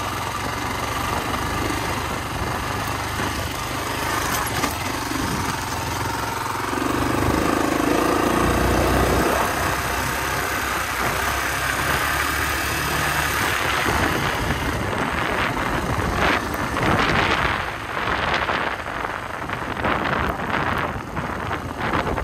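Honda XR250R enduro motorcycle's single-cylinder four-stroke engine running as the bike is ridden over a dirt track, pulling harder for a few seconds about a third of the way in. In the second half, gusty wind buffeting on the microphone rises over the engine.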